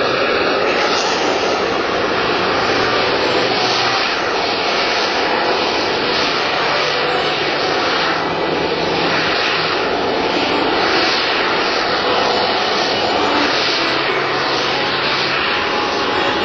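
BAe Harrier GR9's Rolls-Royce Pegasus vectored-thrust turbofan running at high power while the jet hovers and creeps along in jet-borne slow flight, gear down. It makes a loud, steady rushing jet noise that swells and eases slightly as the aircraft drifts.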